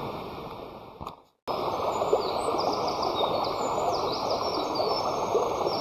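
An open campfire on the ground, crackling with many small pops over a steady rush, while birds chirp high and briefly above it. The sound fades and drops out for a moment about a second in, then resumes.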